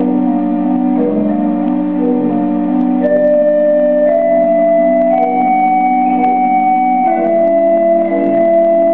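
Pipe organ improvisation: sustained chords under a slow melody of long held notes that climbs step by step, then falls back about seven seconds in.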